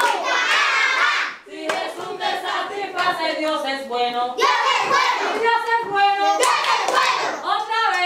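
A group of young children singing a song together, with hand claps through it.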